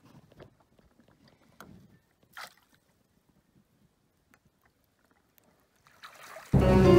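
Faint splashes and small knocks of a hooked trout being brought alongside a kayak, with a splash as it is scooped into the landing net. Near the end, loud dramatic music cuts in abruptly and drowns everything else.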